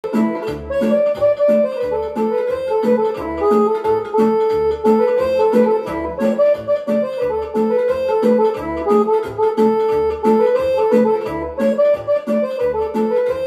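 Korg Pa600 arranger keyboard playing a melody over its own rhythm accompaniment: a steady beat of low bass notes alternating with chords.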